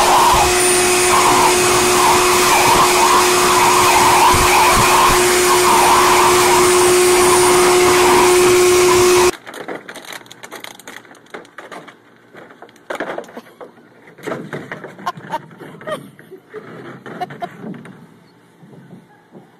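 Blow dryer running steadily with a constant hum as it dries a dog, cutting off abruptly about nine seconds in. After it come quieter scattered knocks and scrapes of a plastic paddling pool being pushed about on concrete by a puppy.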